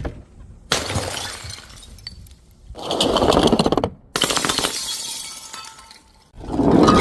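Glass bottles shattering one after another: about four separate crashes, each starting suddenly and dying away before the next.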